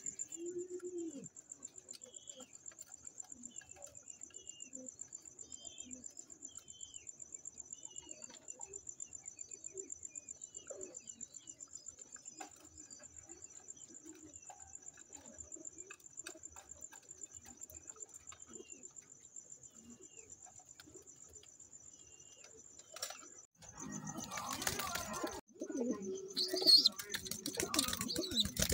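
Domestic pigeons cooing in a loft, with short high chirps among them and a steady high pulsing tone in the background. Near the end comes a louder burst of wing flapping and rustling.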